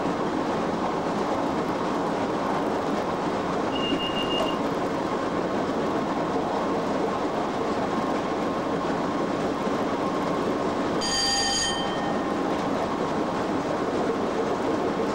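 Steady running noise heard inside the cab of a Class 87 electric locomotive at speed: wheels on rail and rushing air, with a faint steady hum underneath. A brief high-pitched squeal about four seconds in, and a short, louder ringing high tone about eleven seconds in.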